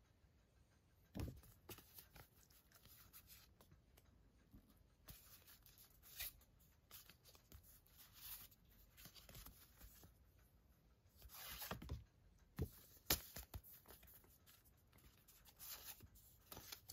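Stiff printed cards being handled and leafed through: faint rustles and slides of card against card, broken by short taps. A cluster of louder rustles and one sharp click comes about three-quarters of the way through.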